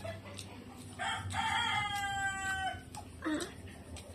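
A rooster crowing once, a long held call starting about a second in and lasting nearly two seconds, followed by a short lower call falling in pitch.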